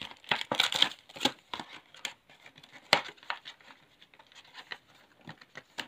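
Torn paper and clear plastic packaging of a Pokémon card box crinkling and tearing as it is pulled apart by hand. There is a quick run of crackles and rips in the first second or so, a sharp crackle near the middle, then sparser, fainter crinkles.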